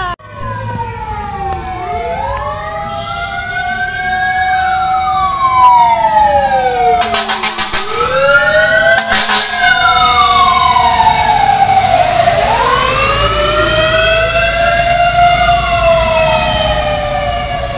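Fire truck sirens wailing, several rising-and-falling tones overlapping and growing louder as the trucks approach. About seven seconds in, a short run of rapid pulses cuts through the wail.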